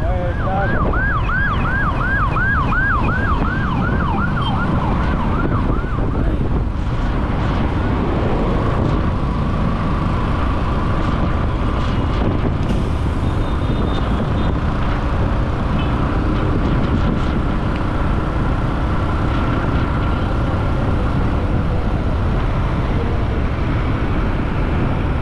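An emergency-vehicle siren yelping rapidly, about three rise-and-fall cycles a second, fading out after the first few seconds. Under it runs steady wind buffeting on the helmet microphone, with road and traffic noise from a moving motorcycle.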